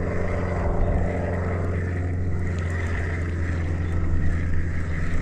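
A boat motor running steadily with an even low hum.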